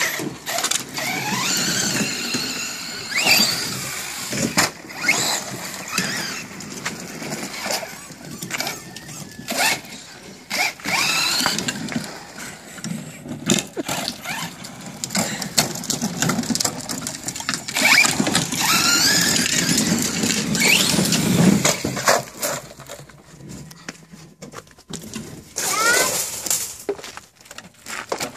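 DHK Zombie 8E 4WD brushless RC truck driving, its electric motor giving a whine that rises and falls again and again as it speeds up and slows, with tyre noise and sharp knocks from jumps and tumbles.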